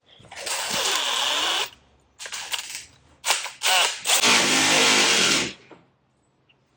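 Power drill drilling holes in bursts: a steady run of about a second and a half, a few short trigger blips, then a longer run whose pitch shifts as the bit bites.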